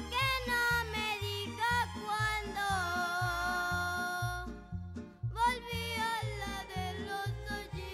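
A voice singing a melody over a backing track with a steady, regular bass beat. The music drops out briefly about halfway through, then resumes.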